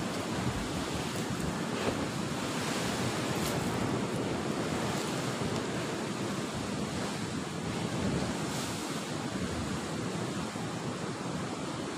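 Sea surf washing and breaking against a rocky shore, a steady rushing noise, with wind on the microphone.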